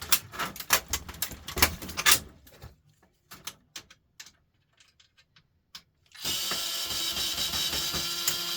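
Clattering and knocking of plastic and metal printer parts being handled, then a few scattered ticks. About six seconds in, a power drill starts running steadily, driving out screws.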